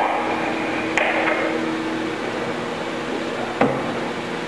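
Steady shop hum with a faint held tone, broken by a light click about a second in and a sharp knock near the end as a workpiece is set down on the welding station's fixture.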